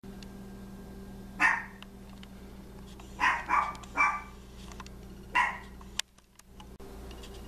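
Small Chihuahua barking in short, sharp yaps: one bark, then a quick run of three, then one more, over a steady low hum.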